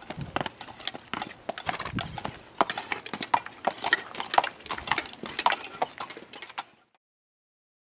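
A saddled horse's hooves clip-clopping on a dirt trail at a walk, an uneven run of footfalls that stops abruptly near the end.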